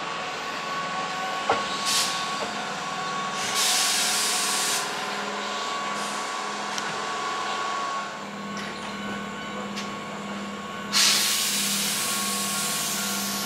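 Older Keihan electric train standing in a station: its pneumatic brakes let out bursts of compressed-air hiss, a short one, then a longer one, and a loud sudden one near the end that fades slowly. Under them runs the train's steady equipment whine and a low pulsing hum.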